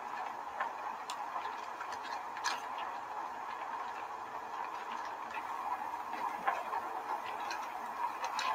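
Large plastic sheet billowing in the air from fans, making a steady rustling hiss dotted with sharp crackles.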